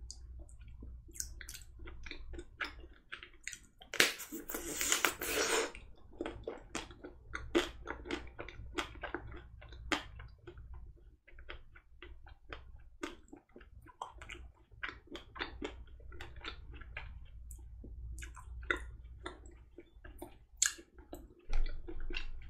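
Close-up chewing and crunching of an ice cream bar's chocolate coating studded with almond pieces: many small sharp crunches and wet mouth clicks, with a denser, louder stretch of crunching about four to six seconds in.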